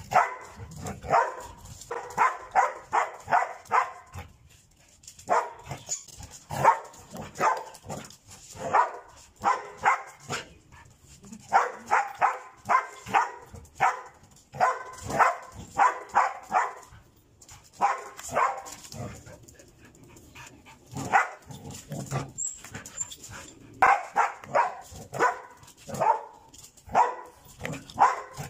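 A dog barking in quick runs of several barks, about three a second, with short pauses between runs: excited play barking while it leaps at a dangling toy.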